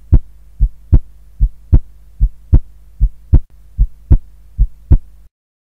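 Heartbeat sound effect: paired lub-dub thumps about 0.8 s apart, around 75 beats a minute, over a steady low hum. It cuts off abruptly near the end.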